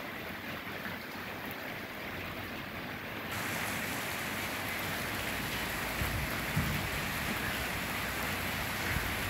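Light, fine rain falling as a steady hiss, which gets louder and brighter about three seconds in. A little low wind buffeting on the microphone comes in near the end.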